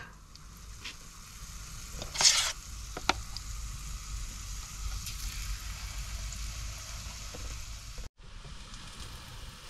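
Zucchini fritter batter frying in hot oil in a pan, a steady sizzle. There is a louder burst of sizzling about two seconds in and a short click a second later, and the sound cuts out for a moment near the end.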